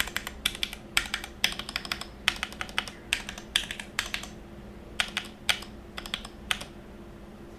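Typing on a gasket-mounted mechanical keyboard with Gateron X linear switches, GMK keycaps and a 5 mm polycarbonate plate: a quick, uneven run of keystroke clacks that stops about a second before the end.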